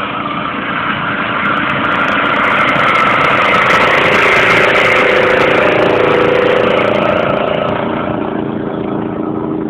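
Petrol walk-behind lawn mower running as it is pushed through a pile of dry fallen leaves, its engine note swelling towards the middle and easing off near the end.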